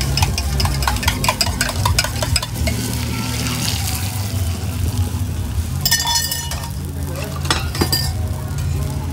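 A utensil clinks rapidly against an enamel mug as egg is beaten for the first couple of seconds. Then the egg is poured onto a hot flat roti griddle and sizzles, with a few clinks near the end and a steady low hum underneath.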